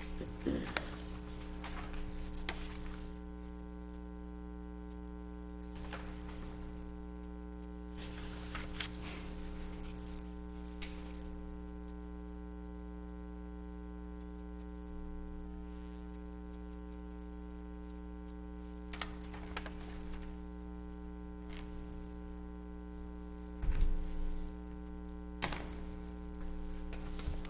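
Steady electrical mains hum with a buzzy stack of overtones, under occasional soft rustles of paper being handled and a dull thump near the end.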